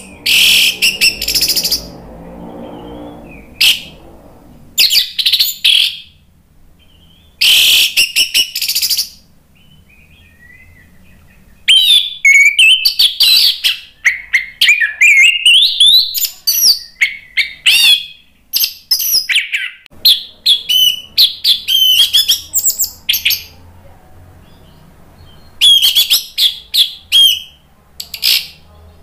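Orange-headed thrush singing in full song: loud bursts of rapid, varied whistled and sweeping phrases, with a long unbroken run of song in the middle and shorter bursts before and after.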